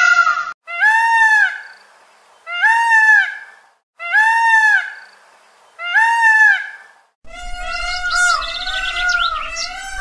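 Peacock calling: four loud calls about a second and a half apart, each rising and then falling in pitch. From about seven seconds in, a continuous wavering, warbling tone takes over.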